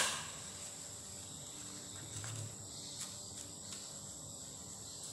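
Steady high-pitched chirring of crickets. A sharp knock comes at the start, and a few faint clicks follow past the middle as the bowl and a small sachet are handled.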